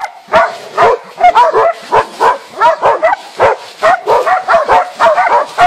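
Hunting dogs barking nonstop in rapid, high, yelping barks, about three a second.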